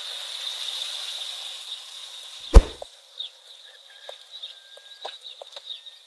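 Steady outdoor hiss with a thin high drone. About two and a half seconds in, one sharp, loud thump cuts it off. After that the ambience is quieter, with scattered faint clicks and a brief thin whistle.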